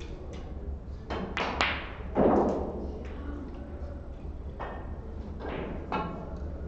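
Scattered sharp clicks and knocks, about seven in all, with one heavier thud about two seconds in that rings briefly.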